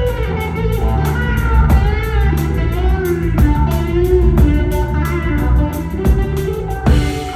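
Live rock band playing an instrumental passage: electric guitar with bending notes over bass and a drum kit keeping a steady cymbal beat. Near the end the band stops together and a held chord rings out and fades.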